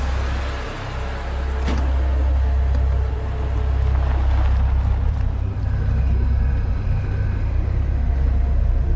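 Car engine running with a heavy, steady low rumble; a sharp click about two seconds in.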